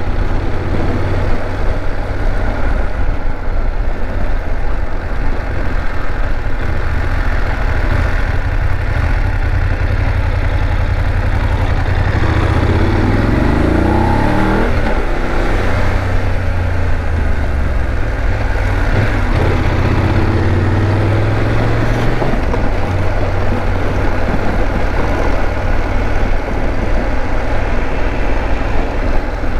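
BMW F 850 GS parallel-twin motorcycle engine running steadily in third gear at low speed. About halfway through its pitch rises as the throttle opens, and it rises again a few seconds later.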